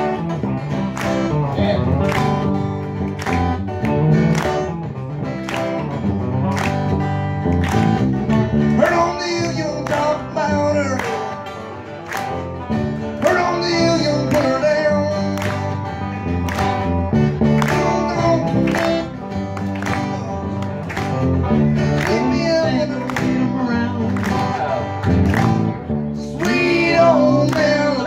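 Live country band playing an instrumental passage: electric and acoustic guitars over a steady beat, with bent notes from a lead guitar.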